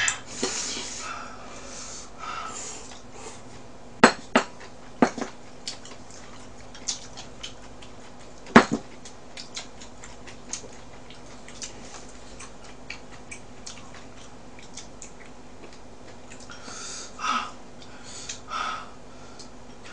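Chopsticks clicking and tapping against dishes and plastic takeout containers while eating. A few sharp clicks come between about four and nine seconds in, with lighter scattered taps around them and a few short hissy noises near the start and end.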